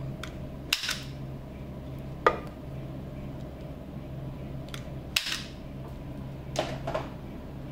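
Pro'sKit CP-367A automatic wire stripper gripping and stripping insulation off the blue lead wires of a toroidal transformer: a few short, sharp snaps and clicks spaced a second or more apart.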